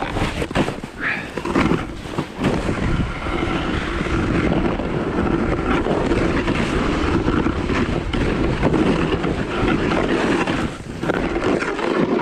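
Snowboard base and edges scraping over frozen, wind-crusted snow while riding downhill, a rough, steady scraping noise that dips briefly near the end.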